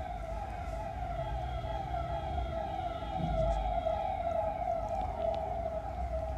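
A siren, a pitched tone that warbles up and down in a repeating pattern, over a low rumble.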